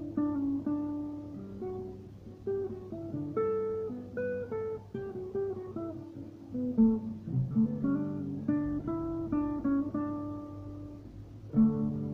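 Acoustic guitar played fingerstyle: a slow hymn tune picked note by note over ringing bass notes, with a louder cluster of chord notes near the end.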